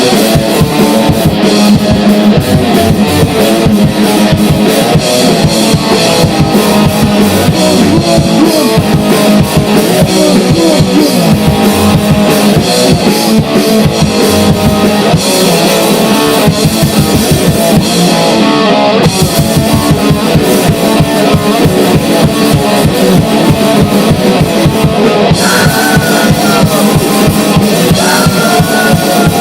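Grindcore noise band playing loud, with distorted guitar over very fast, dense drumming.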